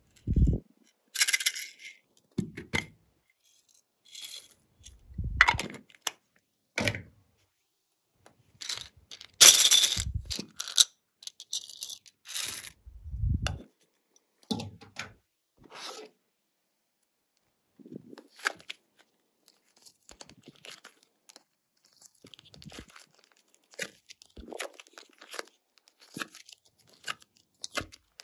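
Irregular crackling, tearing and scraping handling sounds from slime being worked with the items mixed into it. There are a few soft thumps, and the crackling is loudest about a second in and again about a third of the way through.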